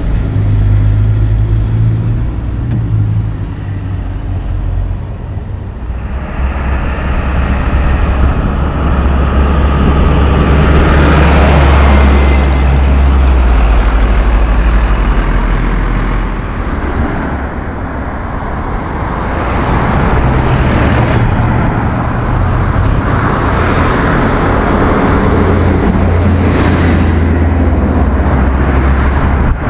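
Heavy diesel trucks driving past on a town road, engine noise mixed with tyre noise. An empty logging truck's low engine drone at the start, a pass that builds to its loudest about twelve seconds in, a brief dip, then a cement mixer truck and other traffic going by.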